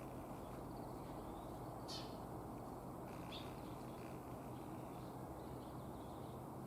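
Small birds giving a few short, sharp chirps, sparse and faint, over a steady low background hum.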